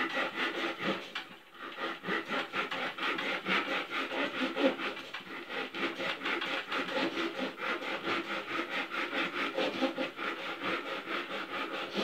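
Hand saw cutting a thin slice from a piece of deadwood, in quick, even back-and-forth strokes with a brief pause about a second and a half in.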